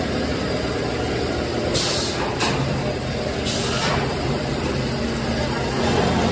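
Steady hum and drone of a running PVC pipe extrusion line's motors and machinery. Three short hisses come through at about two, two and a half, and three and a half seconds in.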